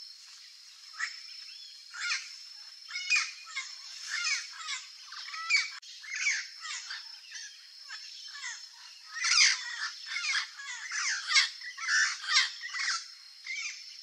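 Young turquoise-fronted parrot (Amazona aestiva) giving a string of short, harsh squawks and chattering calls, busiest from about nine seconds in, over a steady high-pitched hum.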